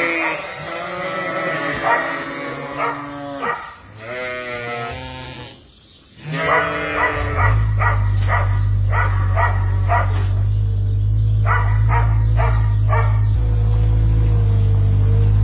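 A flock of Suffolk ewes bleating loudly, many calls overlapping. About seven seconds in, a steady low engine rumble starts and keeps running under the bleats.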